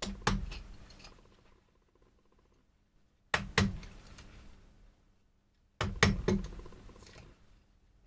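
Hammer blows driving a chisel into wood, landing in three quick groups of two or three sharp strikes, each dying away over about a second.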